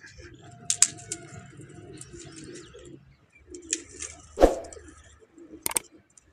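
Pigeons cooing, with a few knocks and clatters of dry firewood sticks being handled. One louder thump comes about four and a half seconds in.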